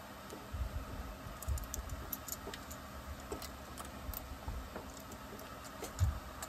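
Light clicks, taps and a few dull knocks of hands handling small parts and tools on a partly stripped chainsaw on a workbench.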